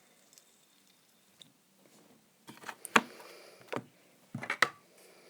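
Handling noise: after a couple of quiet seconds, a run of sharp clicks and knocks as small hard objects are picked up and set down, likely fidget spinners and their packaging.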